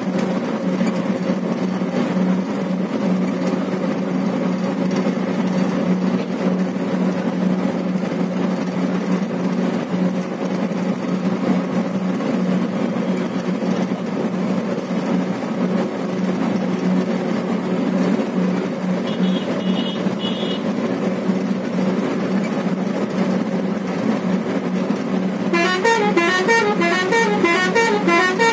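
Steady engine and road drone heard from inside a moving vehicle's cab. There is a brief high beep about two-thirds through. Near the end comes a loud, warbling run of quickly changing notes.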